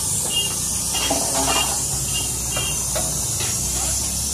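Steady high hiss of food cooking, over a low steady rumble.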